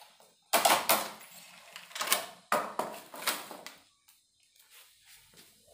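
Plastic packaging crinkling and rustling in three loud bursts as it is pulled off a new carbon surf-casting rod, followed by faint handling of the rod.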